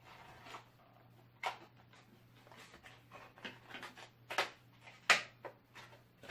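Packaging being handled as a boxed Bluetooth speaker is tugged at to free it from its insert: scattered rustles and knocks, the sharpest a little after five seconds in, over a steady low hum.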